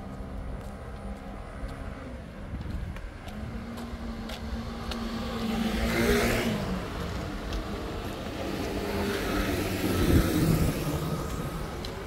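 Street traffic: motor vehicles pass close by, one about six seconds in and another near ten seconds, each swelling and fading over a steady engine hum.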